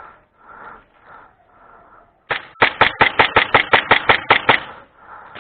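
A quick string of about a dozen sharp airsoft gun shots, roughly six a second, starting a little over two seconds in and stopping after about two seconds, over faint rustling.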